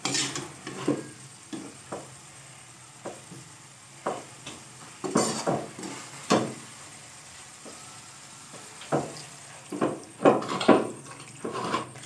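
Black slotted spatula scraping and stirring frying masala in a steel kadhai: irregular scrapes and clacks against the pan, thicker and louder near the end, over light sizzling.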